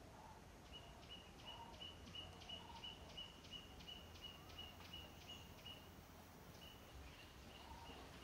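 Faint forest ambience: a small creature repeats a short, high, clicky note about three times a second, pauses briefly, then starts again near the end.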